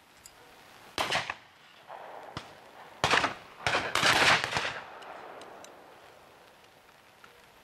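Shotgun shots from several guns firing at clay targets: a single shot about a second in, another about three seconds in, then a quick run of overlapping shots, each trailing off briefly.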